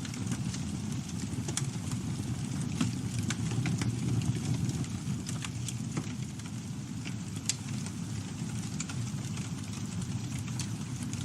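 Campfire burning: a steady low rumble of flames with sharp crackles and pops from the wood at irregular intervals.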